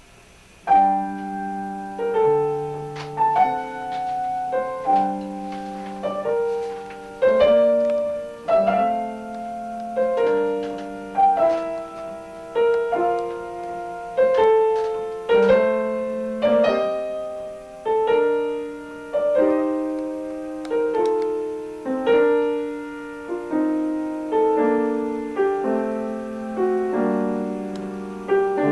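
Piano playing a slow piece in chords, beginning about a second in, each chord struck and left to die away.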